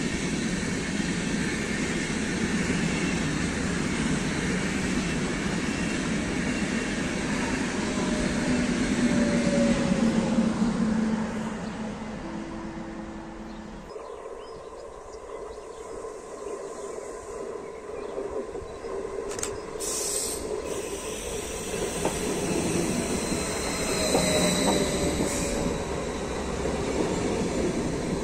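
Intercity passenger train rolling past on the track, its rumble and wheel noise loud for the first ten seconds or so, with falling tones, before fading away. After a break, an ODEG Stadler KISS double-deck electric multiple unit approaches and rolls past, growing louder, with a high wheel squeal near the end.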